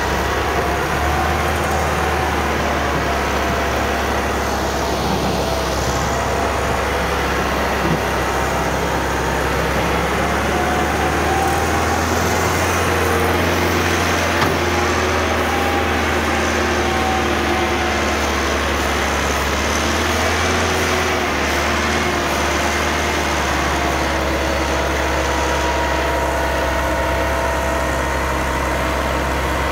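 Massey Ferguson tractor's diesel engine running steadily and hard under heavy load, pulling an overloaded trolley with its front wheels lifted.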